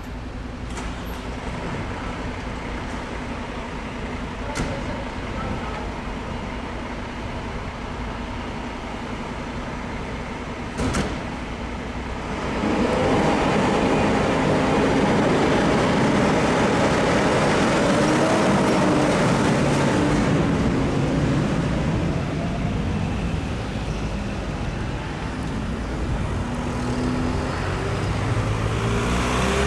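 Volvo fire engine's diesel engine idling, then revving up loud about twelve seconds in as the appliance moves off on a call, easing off after about eight seconds. A few sharp clicks come before the rev-up.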